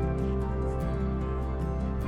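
Background music: soft, steady instrumental music with held chords and a slowly changing bass line.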